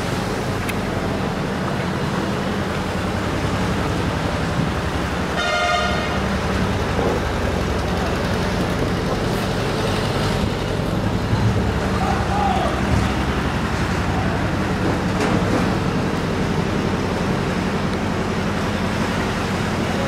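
Steady road-traffic background noise, with a vehicle horn tooting once, briefly, about five and a half seconds in.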